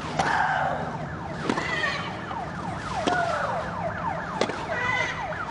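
Tennis rally: the ball is struck four times, about one and a half seconds apart, and most strikes come with a player's loud, drawn-out shriek.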